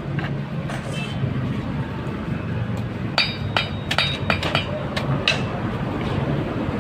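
Pieces of steel clink and knock several times with a metallic ring, most of them between about three and five and a half seconds in, like a hammer tapping on a window frame being made. A steady low hum runs underneath.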